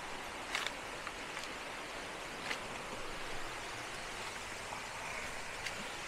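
Steady rushing water of Badaghagara waterfall, with three short crunches of footsteps on dry leaves and stones: just over half a second in, at about two and a half seconds, and near the end.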